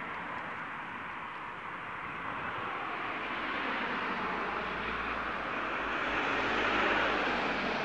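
Steady outdoor background hiss with no distinct events. A low rumble joins about four seconds in, and the hiss grows a little louder near the end.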